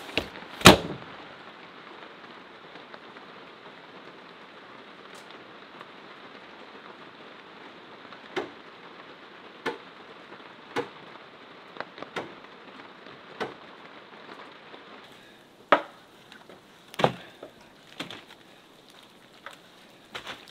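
Hand staple gun snapping staples through paper underlayment into a wooden plank roof: a sharp clack every second or so, about a dozen in all, over a steady hiss of rain.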